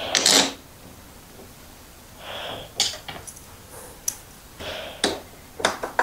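Hands handling small metal parts and a hand tool on a motorcycle's top triple clamp: a rustle at the start, then a brief scrape and a few sharp, separate clicks and taps.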